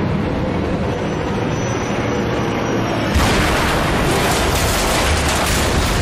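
Propeller aircraft engines droning steadily, then about three seconds in a sudden big explosion, a bomb blast that goes on as a rushing rumble.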